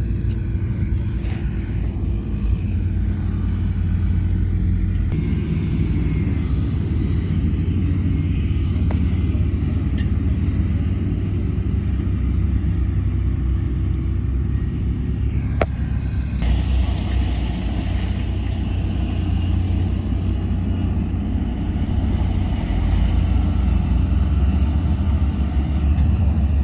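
Heavy diesel construction machinery running steadily with a deep, continuous engine rumble, with a couple of faint clicks or knocks.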